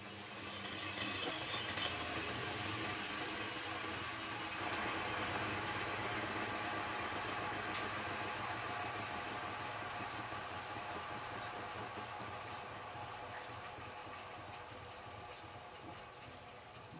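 Homemade metal lathe running with a steady machine hum and rattle, swelling about half a second in and slowly easing off toward the end.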